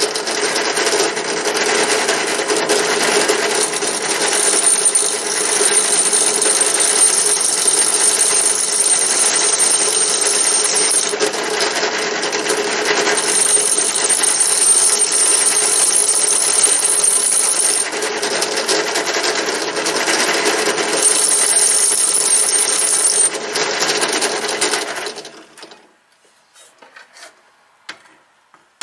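Drill press running at full speed, about 3150 rpm, with a cutter in its chuck being lowered gently onto the end of an air-gun barrel to face and crown the muzzle. A high squeal rises over the steady motor sound three times for a few seconds each as the cutter touches the steel, and the press shuts off near the end.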